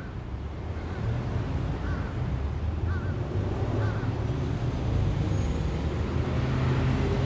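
Low, steady road-traffic rumble that slowly grows louder, with a faint short chirp about once a second through the first few seconds.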